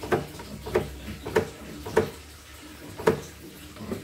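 Elna 8300 embroidery machine's mechanism clunking: about six sharp knocks at uneven intervals over a faint hum, as the jammed machine fails to turn.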